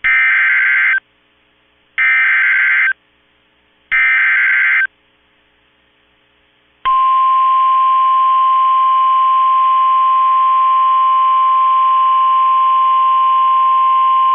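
NOAA Weather Radio alert opening: three SAME digital header bursts, each a buzzy, warbling data squeal of about a second, a second apart, then after a two-second pause the steady 1050 Hz warning alarm tone begins about seven seconds in and holds. Together they signal an automated severe thunderstorm warning.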